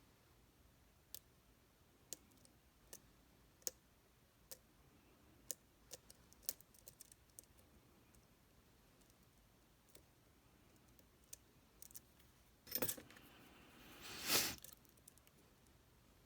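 Faint metal clicks, roughly one a second, from a lock pick and tensioner working the pins of a Tesa TK100 lock. Near the end come two short, louder metallic rattles.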